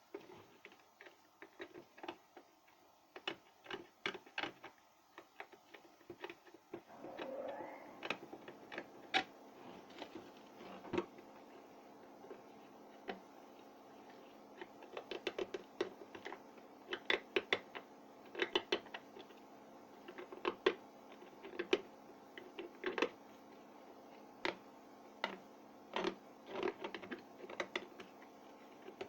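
Irregular light clicks and taps, coming in quick clusters, as of small hard parts being handled and fitted. From about seven seconds in, a faint steady hum runs underneath.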